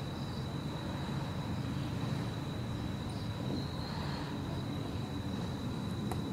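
Steady outdoor background noise: a low rumble with a thin, steady high-pitched tone over it, and one short click near the end.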